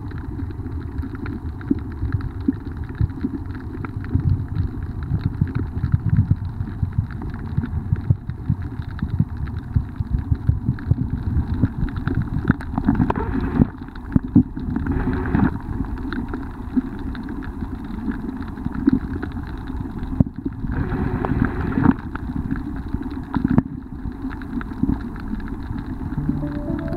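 Muffled underwater rumble and sloshing picked up by an underwater camera's built-in microphone, crowded with short clicks and crackles, swelling briefly a couple of times.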